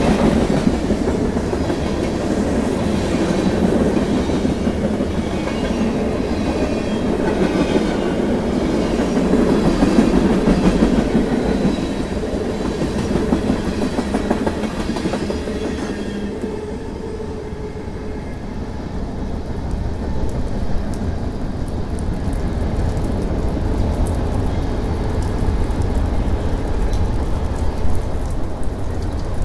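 Freight train tank cars and covered hoppers rolling past, wheels clicking and clattering over the rail joints. About halfway through the sound changes abruptly to a duller low rumble with the patter of rain.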